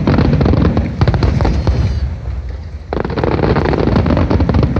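Fireworks going off: a volley of bangs and dense crackling starts sharply, eases off, and a second volley of crackling bursts breaks out about three seconds in.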